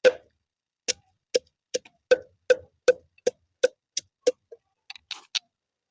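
A quick, regular series of about a dozen sharp knocks, roughly two and a half a second, each with the same dull pitch, then a few fainter taps near the end.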